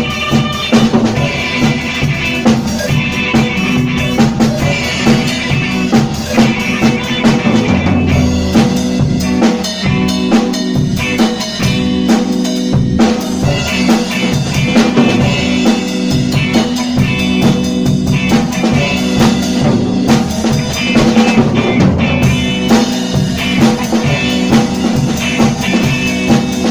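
Instrumental music: a drum kit playing a busy beat of snare, rimshots and bass drum over held low notes.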